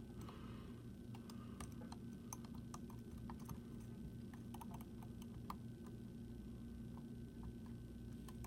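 Faint, irregular small clicks of a dimple pick working the spring-loaded pins inside a Rav-Bariach dimple padlock held under tension.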